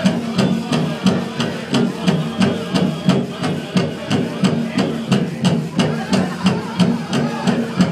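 Powwow drum group beating a large drum in a steady rhythm of about three strikes a second, with the singers' voices carried over it.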